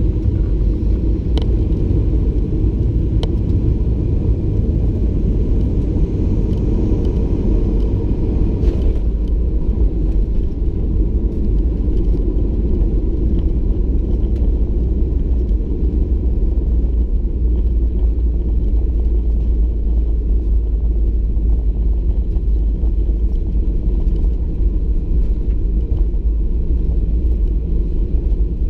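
Cabin noise of a Boeing 737-800 landing. A steady engine and airflow rumble on short final gives way, about 9 seconds in, to a sharp touchdown bump. After it comes a heavier, deeper rumble as the jet rolls out on the runway with its ground spoilers up.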